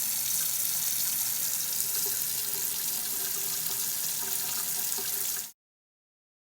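Water running hard from a tap in a steady rush, cut off abruptly about five and a half seconds in.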